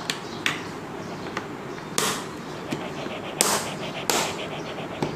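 Steel drill bits and small tools handled in the moulded plastic tray of a tool-kit hard case: a series of separate light clicks and scrapes as the bits are slotted back in, with a brief rapid rattle about three seconds in.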